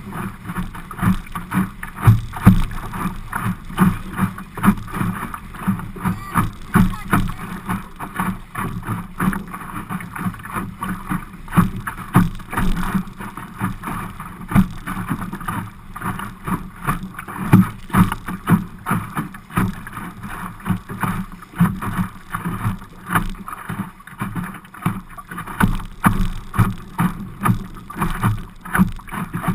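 Choppy water rushing and slapping against the hull of an Optimist sailing dinghy under way, heard from a GoPro mounted in the boat, with frequent irregular knocks of waves hitting the hull and wind buffeting the microphone.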